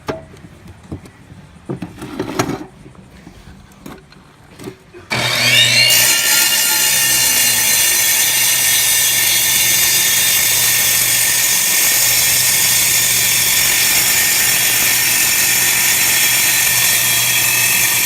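A few light handling knocks, then about five seconds in an electric masonry saw starts with a rising whine as the blade spins up and runs steadily and loudly, cutting the second 45-degree miter on a stone sill.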